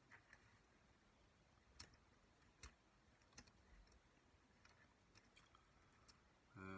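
Near silence with a few faint, scattered clicks of small plastic and metal box-cutter parts being handled and fitted together.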